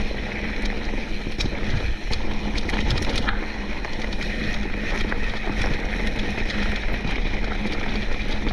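Mountain bike rolling down a dirt singletrack: a steady rumble of the tyres on the trail with wind on the microphone. A flurry of sharp clicks and ticks from the bike comes over the first three seconds or so.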